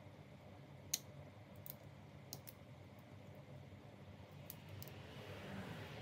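A few sharp, small clicks and taps from handling the laptop's small internal parts and tools, the loudest about a second in.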